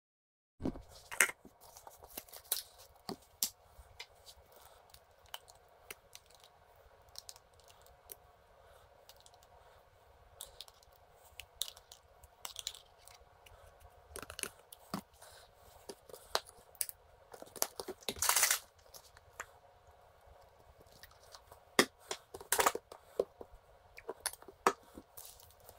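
Kitchen handling noises while sauces are mixed by hand: a spoon scooping mayonnaise from a jar, and jars, lids, squeeze bottles and small plastic tubs clicking and knocking on the countertop. Scattered sharp clicks and taps, with one longer scraping noise about two-thirds of the way through.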